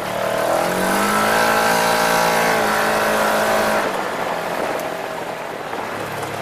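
Side-by-side UTV engine revving up under acceleration. The revs climb about half a second in, hold steady for about three seconds, then drop back to a lower drone.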